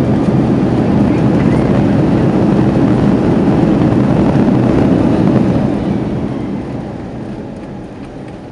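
Airbus A330's jet engines running at high power, heard from inside the passenger cabin, a loud steady roar that winds down from about six seconds in as the engines are throttled back. This is the engine run-up on the runway to shed ice before takeoff.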